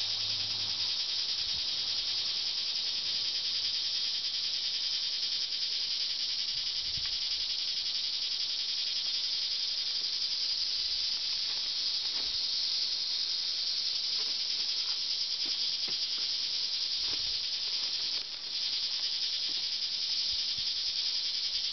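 A steady, high-pitched hiss, with a few faint knocks here and there.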